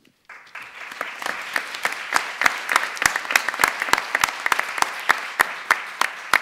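An audience applauding: many people clapping together, starting a moment in, with a few loud single claps close by standing out from the rest.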